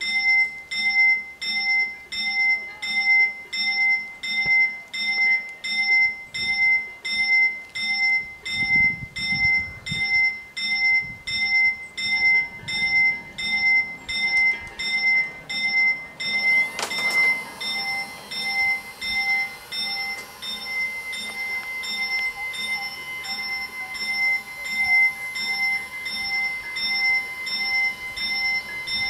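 Italian level-crossing warning bells start and ring steadily at about two strikes a second, the crossing's warning that a train is coming. About halfway in, more mechanical sound joins the ringing as the crossing's barrier arms begin to lower.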